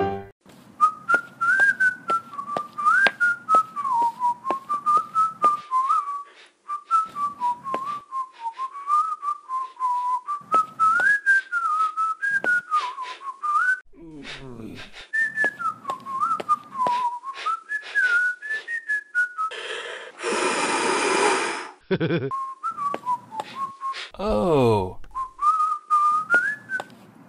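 A person whistling a wandering, carefree tune, over frequent light clicks. Two sliding tones fall in pitch, about halfway through and near the end, and a loud harsh noisy burst lasts about a second and a half a little past two-thirds of the way in.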